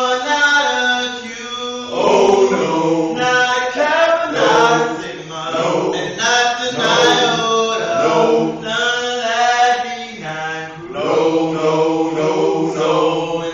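A group of men chanting a step-team cadence together in rhythmic phrases, the voices loud and slightly echoing in a bare room.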